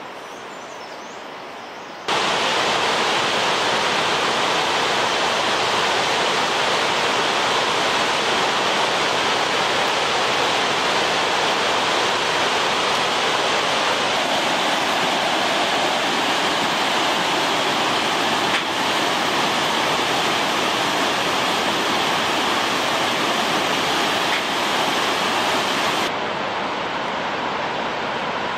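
Loud, steady rush of a fast white-water mountain river pouring over boulders. It starts suddenly about two seconds in and sounds a little duller near the end.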